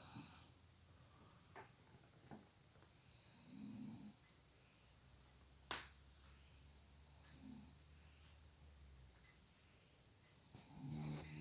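A person snoring faintly, a snore roughly every three and a half to four seconds, the last near the end the loudest, over a steady high trilling of insects. A single sharp click about halfway through.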